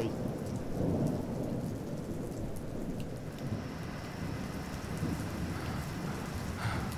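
Steady low rumble under a soft hiss: a rain-and-thunder ambience.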